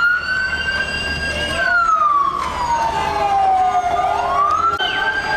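Vehicle siren wailing slowly. The tone holds high, falls steadily for about two seconds, then climbs again about four seconds in and holds high once more.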